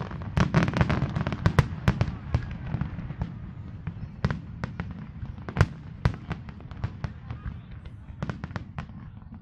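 Aerial fireworks display: a rapid, irregular string of shell bursts and crackles over a low rumble, thickest in the first two seconds, with a loud bang about halfway through.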